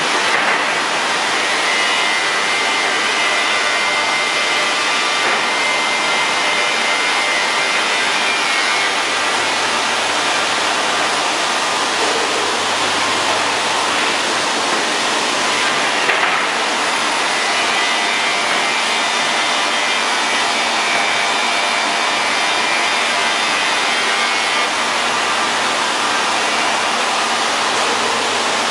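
Industrial wide-belt panel sanding machine running with a loud, steady rushing noise and a faint whine on top.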